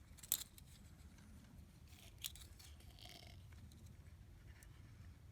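Near silence: faint room tone broken by two short, sharp clicks, one right at the start and one a little past two seconds in.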